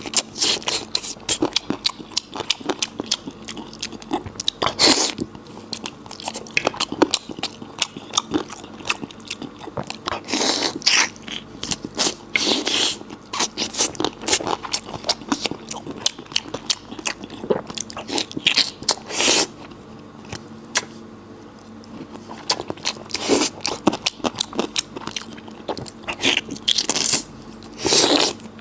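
Close-miked eating of spicy goat belly: steady wet chewing and mouth clicks, with louder bites or slurps every few seconds.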